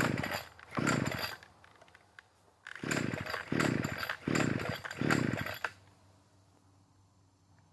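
Blue Max 42.7cc two-stroke string trimmer being pull-started on choke: six short whirring cranks of the engine on the recoil starter, two near the start, then a pause, then four in quick succession, without the engine catching and running.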